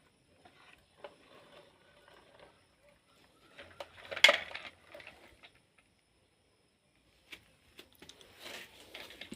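Small plastic toys being handled: scattered light clicks and rustles, with one louder clatter about four seconds in and a short pause near the middle.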